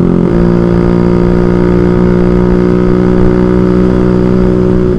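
Automatic scooter's engine running at a steady cruising speed, its pitch holding nearly constant, with a low wind rumble on the helmet-mounted microphone underneath.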